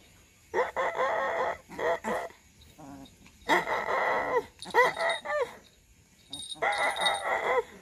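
Young puppy yapping at a hand in short bursts, about five times.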